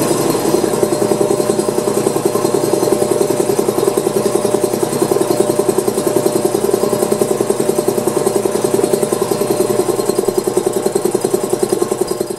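Rebuilt cast-iron piston air compressor pump, belt-driven by a 220-volt electric motor, running steadily with a rapid, even pulsing as it pumps up the tank.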